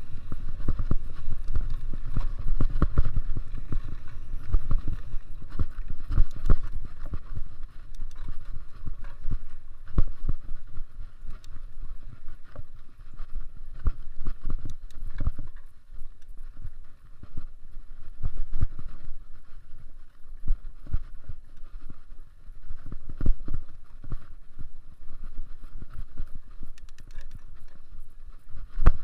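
Mountain bike ridden over a bumpy dirt trail: a rough rumble from the tyres, with frequent irregular knocks and rattles as the bike hits bumps.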